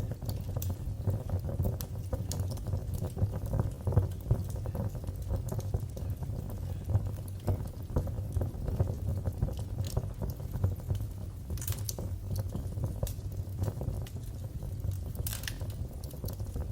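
Wood fire burning in a fireplace: a steady low rumble of flames with constant small crackles and pops, and a couple of sharper snaps about twelve and fifteen seconds in.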